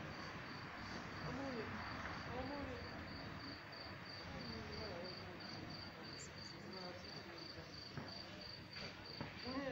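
A cricket chirping in a steady, even run of short, high-pitched pulses, about three a second, over faint city background noise.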